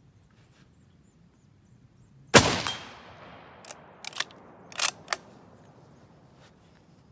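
A single shot from a Lee Enfield No. 4 bolt-action .303 rifle about two and a half seconds in, its report echoing away over about a second. It is followed by a few short sharp clicks as the bolt is worked for the next round.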